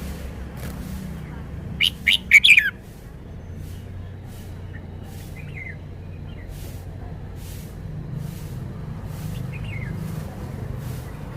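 Red-whiskered bulbul singing a short, loud phrase of quick sweeping whistled notes about two seconds in, then two faint short notes later, over a steady low rumble.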